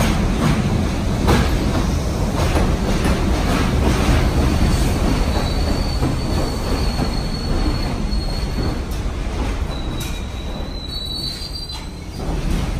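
R62A subway train running into a station, rumbling, its wheels clicking over rail joints. From about five seconds in a thin high squeal sets in as it slows, fading and returning near the end.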